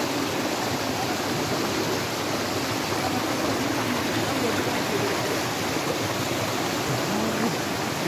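Shallow rocky stream rushing and splashing over boulders in a steady wash of water noise.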